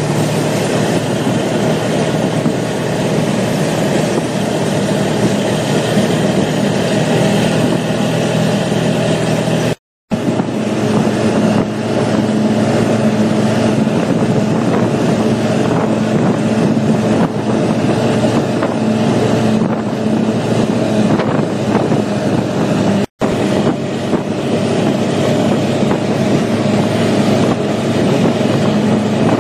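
ATV engine running steadily while riding, with wind rushing over the microphone. The sound drops out to silence twice, briefly, about a third of the way in and again about three quarters through, and the engine note is higher after the first gap.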